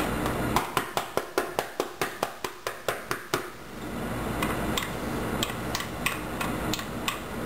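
Rolling herb mincer chopping parsley on a paper plate: a quick run of sharp clicks and taps, about six a second for roughly three seconds, then sparser and fainter taps.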